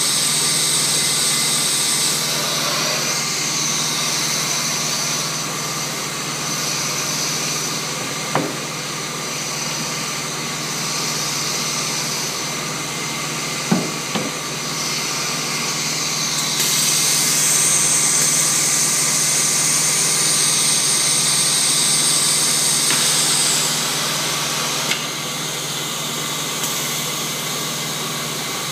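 Vacuum stone lifter's pump running steadily with a whine and a high air hiss that swells for several seconds past the middle. A few sharp knocks, stone against the wooden bench, about a third and halfway through.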